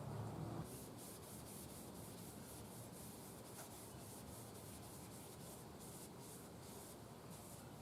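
Faint rhythmic rubbing of a cloth wiping dark walnut stain over the wooden radio cabinet, in quick repeated strokes.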